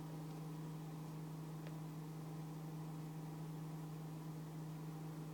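A steady low hum under an even hiss, with one faint tick about a second and a half in.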